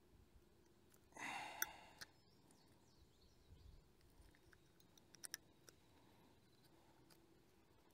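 Near silence, broken by one short breathy sigh about a second in and a few faint, sharp clicks at about two seconds and five seconds in.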